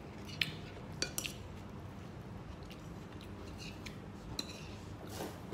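Cutlery clinking against a plate, a few sharp clicks about a second in, as a meal is eaten.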